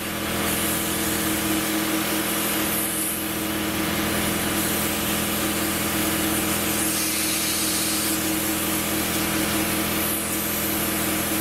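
Steady hiss of compressed air through a paint spray gun, spraying a coat onto a metal engine cover, over a steady machine hum.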